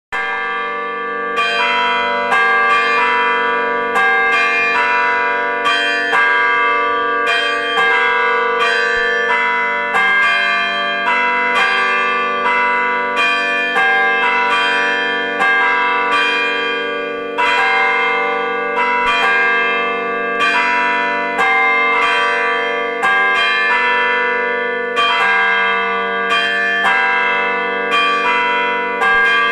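Church bells ringing a continuous peal, one bell struck after another in quick succession, with the tones overlapping and hanging on.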